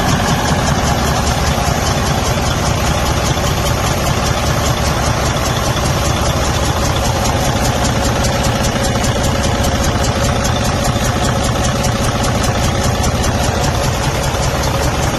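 Detroit Diesel DD15 inline-six diesel engine idling with a rapid, even clatter from the valvetrain. The noise is the sign of a damaged intake valve in the cylinder head, which leaves play that valve adjustment does not take out.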